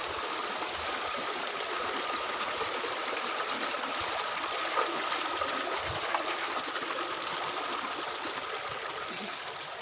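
A mountain stream running steadily over rocks: an even rushing hiss, with a couple of light knocks about five and six seconds in.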